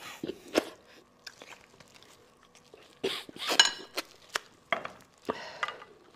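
Close-up eating sounds of sheep bone marrow: wet sucking and slurping at pieces of sauced bone, with chewing and sharp clicks of bone pieces. They come in three clusters, just after the start, about three seconds in, and about five seconds in.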